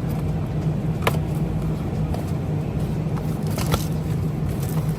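Supermarket background noise: a steady low hum and rumble, with a couple of sharp clicks, one about a second in and one near the end.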